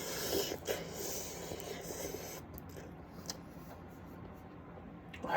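A person eating spicy ramen noodles: slurping and chewing with a hissing intake of noodles in the first couple of seconds, then a few light clicks and quieter eating.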